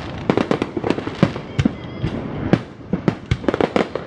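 Aerial fireworks exploding in rapid, irregular succession, several bangs a second, over a steady background hiss and rumble.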